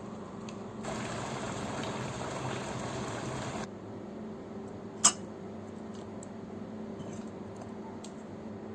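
Liquid being poured for about three seconds, stopping abruptly, over a steady low hum; a second or so later comes a single sharp click.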